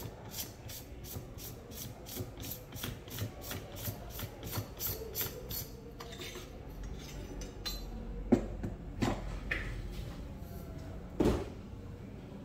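Handling noise from disassembling a Reximex Throne PCP air rifle: a run of light clicks, about three a second, for the first half. Then a few louder knocks of metal parts on the wooden bench, the loudest two about eight and eleven seconds in.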